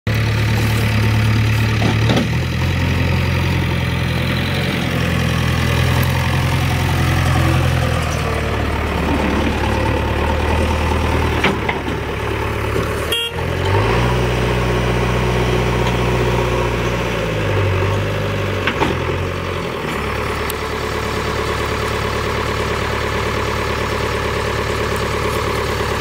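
JCB backhoe loader's diesel engine running as the machine works its front loader bucket, the engine note stepping up and down as the revs change. There is a brief break just past halfway.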